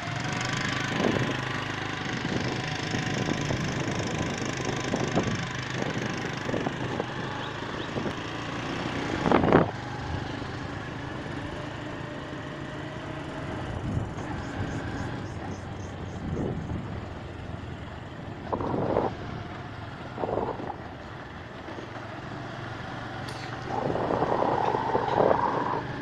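Motor vehicle running along a rough road, heard from on board: a steady engine hum and road noise, with a few short louder sounds about nine seconds in, twice around 19–20 seconds, and near the end.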